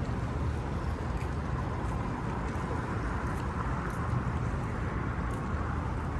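Steady outdoor city ambience, a continuous low rumble like distant traffic, with no single event standing out.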